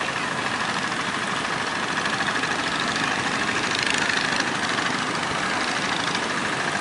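Small engine of an outrigger fishing boat running steadily, mixed with the rush of breaking surf.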